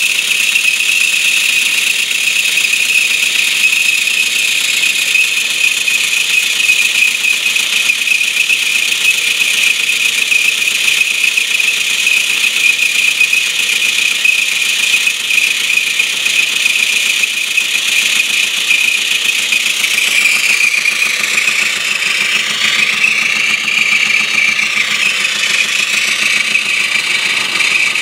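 Live steam hissing steadily and loudly from a bench test rig, where a stationary boiler feeds steam to the cylinders of a 16mm-scale Baldwin 8-12D Mogul chassis. The hiss stays even throughout, with a sweeping change in tone near the end.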